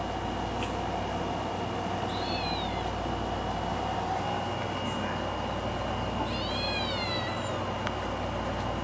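Grey tabby kitten meowing twice: a short cry about two seconds in, then a longer one around six seconds in that rises and falls in pitch. Under both run a steady thin high tone and constant background noise.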